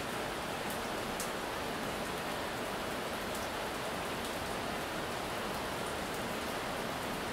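Heavy rain pouring steadily and splashing on wet tiled paving, an even hiss with a few sharper drop ticks now and then.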